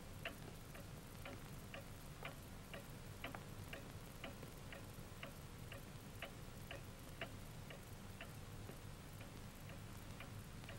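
A clock ticking faintly and evenly, about two ticks a second, over a low hum.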